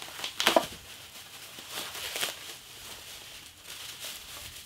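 Clear plastic packaging crinkling and rustling as it is handled, in several short spells, the loudest about half a second in.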